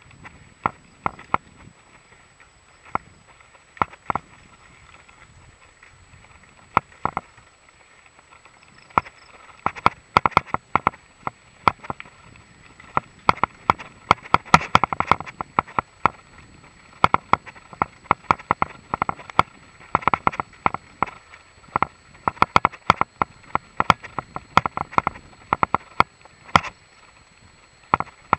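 Mongoose XC Salvo Comp full-suspension mountain bike rattling over bumpy grass and dirt: irregular sharp clicks and clacks of chain and parts jolting, sparse at first and coming thick and fast from about a third of the way in.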